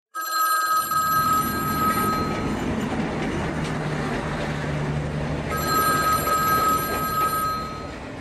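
Payphone ringing twice, each ring about two seconds long with a pause of about three seconds between them, over a steady low rumbling noise.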